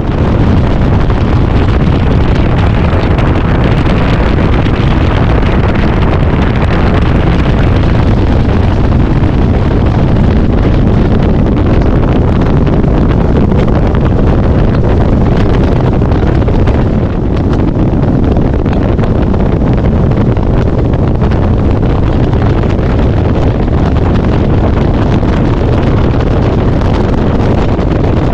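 Loud, steady wind buffeting the microphone during a high-speed run in a Phoenix bass boat, over the drone of the outboard motor and the hull on the water.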